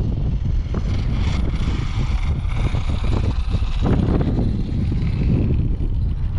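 Strong wind buffeting the microphone in constant low gusts, with a faint high whine about a second in that fades out by the middle.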